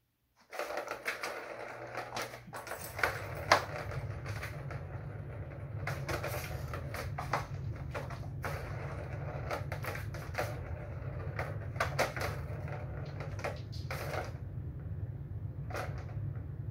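Plastic ball rolling around the circular channel of a Turbo Track cat toy, a steady rattle, with frequent sharp clicks and knocks as kittens bat at the ball.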